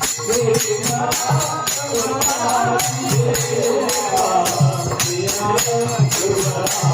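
Marathi kirtan music: a fast, steady beat of jingling hand percussion and a drum under group singing.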